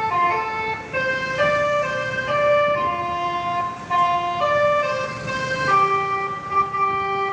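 Multi-tone telolet air horn on a material truck playing a tune: a string of held chord-like notes stepping up and down several times a second, settling into a longer held note near the end.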